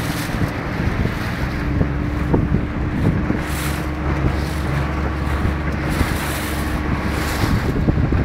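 Strong wind buffeting the microphone over choppy, breaking sea and splashing water, with a steady low hum underneath.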